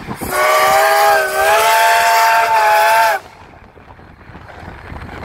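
CT273 steam locomotive's whistle sounding one long blast of about three seconds, several notes at once over a hiss of steam, with a slight dip partway, then cutting off sharply.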